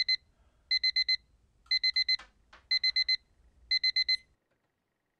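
Bedside alarm clock beeping in quick groups of four, about one group a second, then stopping about four seconds in as it is switched off.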